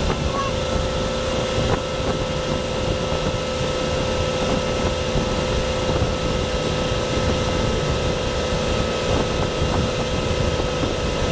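Motorboat engine running at a steady cruising speed while towing, a constant drone, with wind buffeting the microphone and water rushing in the wake.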